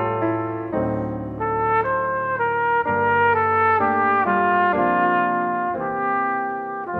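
Cornet playing a melody, one held note flowing into the next without breaks, over sustained piano chords.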